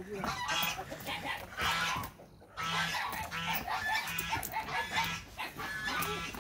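Domestic hens squawking and clucking over and over, disturbed as they are caught from the coop, with a short lull about two seconds in.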